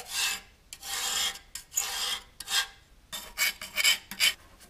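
Steel hand scraper scraping crusted grease and paint off a rusty cast-iron tractor transmission housing, in a series of separate strokes, longer ones first and then shorter, quicker ones.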